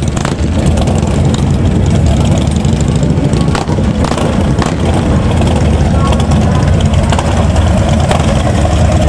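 Custom Harley-Davidson bagger's V-twin engine running steadily at idle, loud and low.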